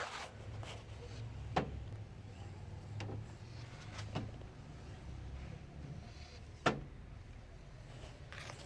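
Low steady machine hum with four sharp clicks, two of them louder, during a smoke test for a vacuum leak.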